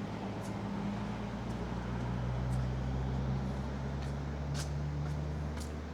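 A vehicle's engine running on the street, a low hum that swells and then fades near the end, as of a car passing or pulling by slowly.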